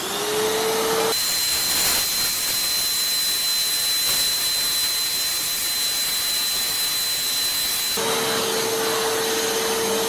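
Inalsa Micro WD10 wet and dry vacuum cleaner running, its motor starting up with a steady hum. From about a second in until about eight seconds, while the floor nozzle sucks up water, dust and small stones from the tiles, the hum gives way to a rushing hiss with a high whine. Near the end the plain hum returns.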